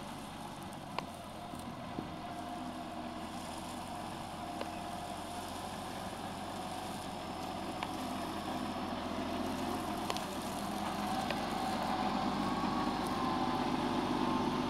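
Deutz-Fahr tractor's diesel engine running as it pulls a slurry tanker with a trailing cultivator, with a wavering whine over the engine drone. It grows louder over the last few seconds as the tractor comes closer.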